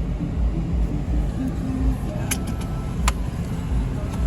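A car running with a steady low rumble of engine and road noise. Two sharp clicks come about two and three seconds in.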